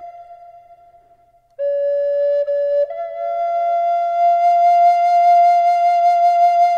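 Solo flute music playing slow, long-held notes. A held note fades away, and after a brief pause a lower note starts about one and a half seconds in. It steps up to a long held higher note about three seconds in.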